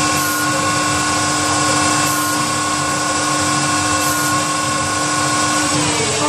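Hunor PNC712 CNC lathe running, a steady machine whine made of several held tones over a noisy hum. Faint high hiss bursts come about every two seconds, and the pitch falls slightly near the end.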